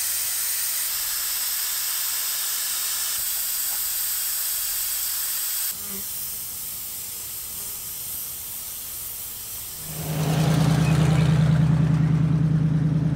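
Air hissing steadily out of a tire valve as the tire is aired down, dropping to a quieter hiss about six seconds in. About ten seconds in, the 1974 Jeep Cherokee's carbureted engine takes over, running with a steady low hum as it drives the trail.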